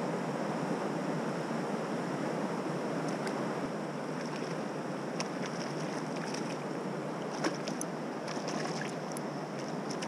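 Steady rush of flowing stream water, with a scatter of small splashes from about three seconds in, as a hooked trout thrashes at the surface; the sharpest comes about seven and a half seconds in.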